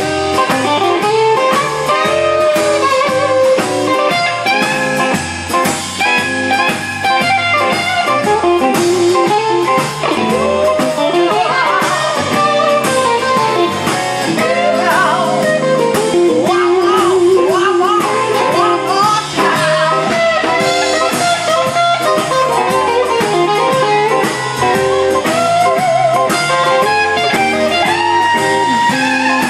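Live blues band playing, with an electric guitar prominent: its notes bend and waver over the rhythm of the band.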